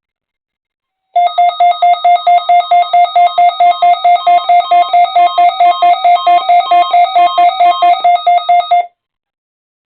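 Weather radio receiver's electronic alert beeping, a high pitched tone pulsing about four times a second for about eight seconds, set off by the Required Weekly Test alert from the station.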